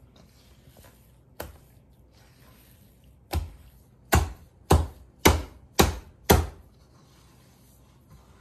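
Soft sel roti rice-flour dough being kneaded by hand in a stainless steel bowl: a single slap, then six louder slaps at about two a second as handfuls are lifted and thrown back down into the bowl.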